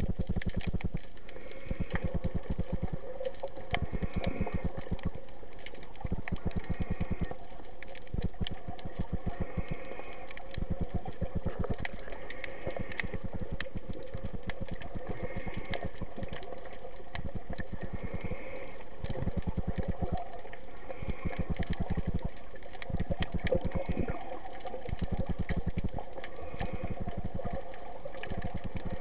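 Underwater sound through an action camera's waterproof housing while snorkeling: a dense fine crackling with water sloshing, swelling and fading every two to three seconds.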